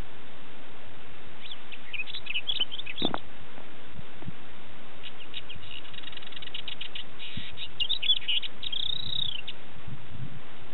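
A crested lark (Galerida) singing: a short phrase of quick chirps early, then a longer run of rapid trills and chirps that ends in a rising-and-falling whistle. A steady hiss runs underneath.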